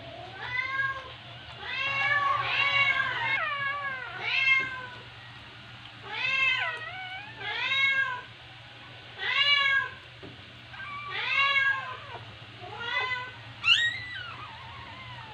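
Newborn puppies crying in high, mewing squeals, each cry rising then falling in pitch, repeated every second or two, with a sharper, louder squeal near the end.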